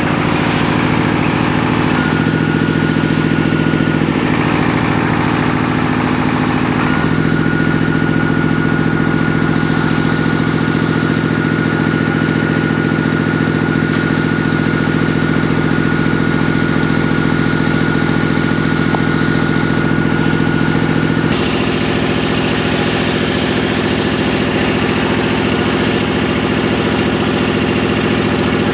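Diesel engine running steadily at constant speed. A thin high whistle comes and goes above it, and the engine note changes about two-thirds of the way through.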